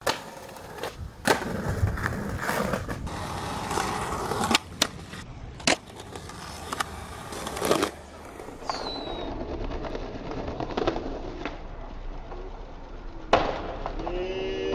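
Skateboard on stone and concrete: wheels rolling, trucks grinding along a stone ledge, and a series of sharp cracks from tail pops and landings.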